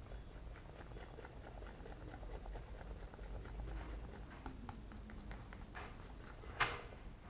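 A mixing tool stirring a thick mix of powder and body lotion in a bowl, giving faint, irregular little clicks and scrapes, with one sharper click near the end.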